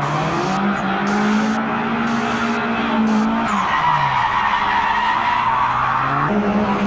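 Added car sound effect: an engine revving, its pitch falling and then climbing again, under a continuous tyre screech and skid. The sound changes abruptly near the end.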